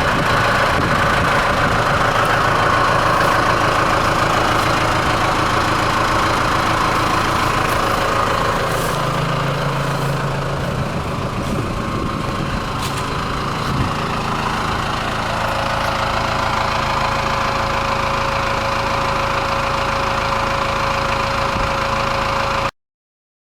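Tractor engine driving a WoodMaxx WM-8H PTO wood chipper, running steadily with no material being fed. The sound cuts off abruptly just before the end.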